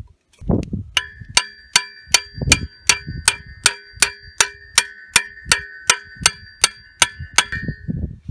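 Metal struck over and over in an even rapid series: about eighteen ringing clinks, close to three a second, starting about a second in and stopping near the end, with a bell-like ring carrying between the strikes.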